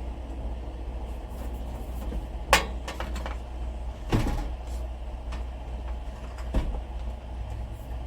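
Three sharp knocks and clunks, roughly a second and a half apart, as an object is handled and set into a shelf, over a steady low hum.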